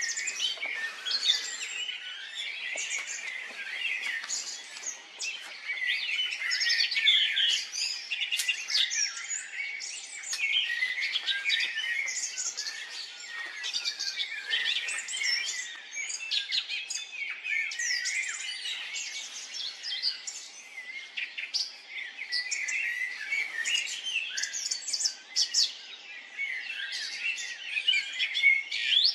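Songbirds singing and chirping together, many short overlapping calls and trills in a continuous chorus.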